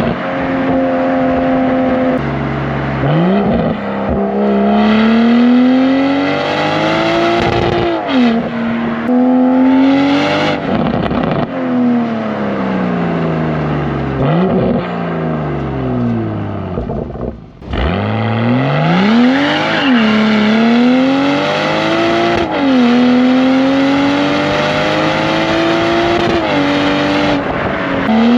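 BMW M240i's B58 turbocharged inline-six running through a Valvetronic Designs valved sport exhaust, heard from a bumper-mounted camera. The engine pulls up through the revs and drops back at each gear change, about half a dozen times. The sound nearly cuts out briefly just before the final pulls.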